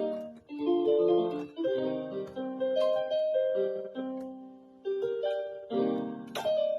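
Solo piano played freely in an improvised style, phrases of chords and melody notes that ring and die away, with short pauses between phrases.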